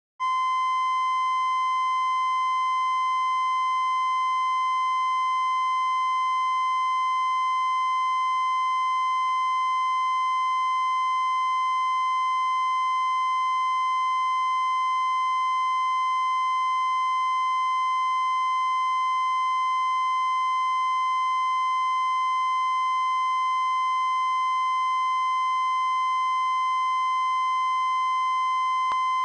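Television line-up test tone broadcast with the TRT 3 test card: a single unbroken steady beep held at one pitch and level.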